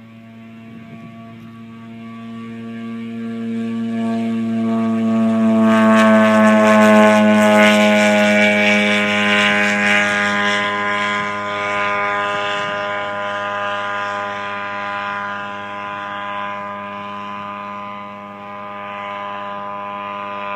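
Aerostar unmanned aircraft's engine and propeller droning steadily. It grows louder as the aircraft passes about six seconds in, the pitch dropping slightly, then fades gradually as it flies away.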